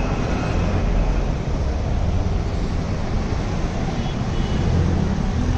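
Busy city street ambience: a steady mix of road traffic noise with a heavy low rumble.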